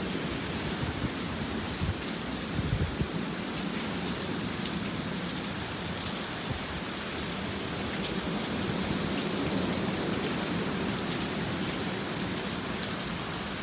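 Heavy rain pouring steadily in a windstorm, with a brief low buffet from a wind gust hitting the microphone about three seconds in.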